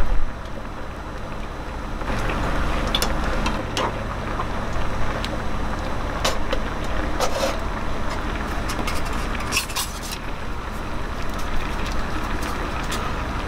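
Soup bubbling at a hard boil in a camping pot over a burning alcohol stove, a steady low rumble and hiss. Several light metallic clinks as the metal stove parts are picked up and handled.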